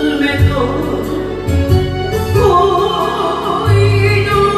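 Older woman singing an enka ballad into a microphone with vibrato, over a recorded backing track with a steady bass line.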